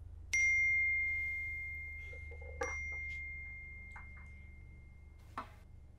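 A clear, high bell-like tone is struck about a third of a second in and again about two seconds later. Each time it rings on as one pure note that fades slowly. A few short clinks follow near the end.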